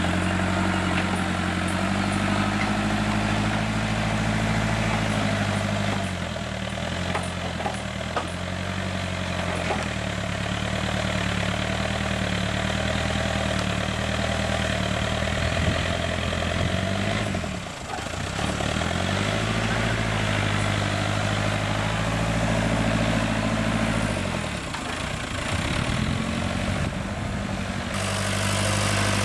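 Diesel engine of a JCB backhoe loader running, its note sagging and then climbing back three times as the revs and load change.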